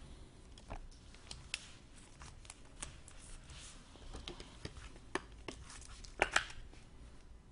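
Trading cards being handled: light rustling with scattered sharp clicks and snaps as cards and packaging are slid and flexed, the two loudest a little after six seconds in.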